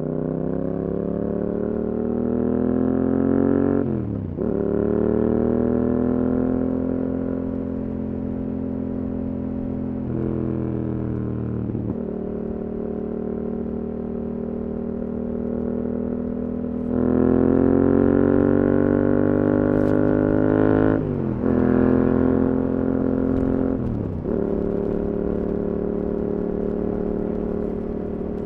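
Yamaha R7 parallel-twin engine through an Akrapovič exhaust, ridden under way. The revs climb for a few seconds and drop sharply at a gear change, the engine holds a steady note, then runs louder on more throttle from about halfway, with two more quick dips in revs near the end as it shifts.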